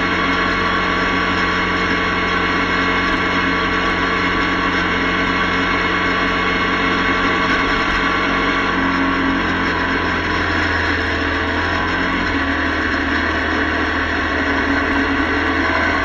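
Motorcycle engine running steadily at cruising speed, with wind and road noise, heard from a camera mounted on the moving bike. The engine note changes a little about twelve seconds in.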